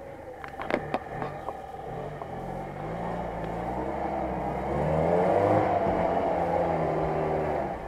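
UAZ-469 engine pulling under load as the vehicle climbs over rocks, its revs rising about halfway through and held high until just before the end. A few sharp knocks near the start.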